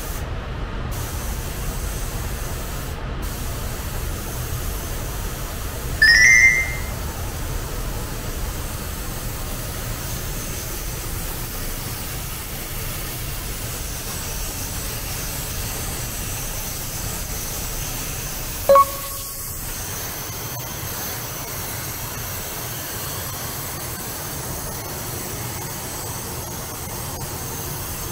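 Steady hiss of a compressed-air paint spray gun, with a short rising high-pitched chirp about six seconds in and a brief tone about two-thirds of the way through.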